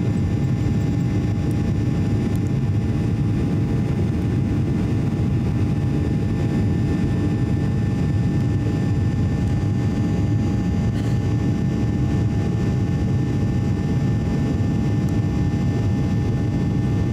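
Steady engine and airflow noise inside the cabin of a Boeing 737-800 climbing out after takeoff: a deep, even rumble with faint constant whining tones above it.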